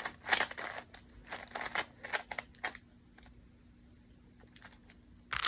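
A 3x3 Rubik's cube being turned quickly: rapid plastic clicking and clacking of its layers. The clicks thin out for about two seconds past the middle, then come back as a dense flurry at the end.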